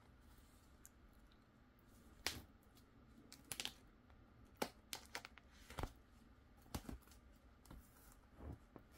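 Plastic pocket pages of a 9-pocket card portfolio being handled and turned by a gloved hand: faint, scattered crinkles and soft taps, about ten in all, starting about two seconds in.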